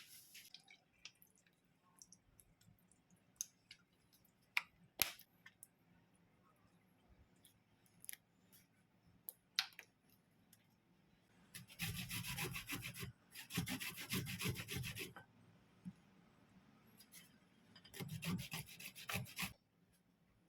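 Kitchen preparation sounds: scattered light clicks and knocks, then three spells of quick rasping, rubbing strokes lasting a second or two each, the last ending near the close.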